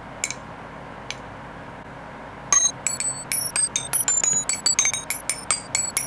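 Silver coins and a silver bar knocked against each other, giving a fast run of sharp clinks with short high metallic rings, about five or six a second from about two and a half seconds in, after two light taps in the first second. It is a ring test of silver, where pure pieces ring differently from alloyed ones. A steady air-conditioner hum sits underneath.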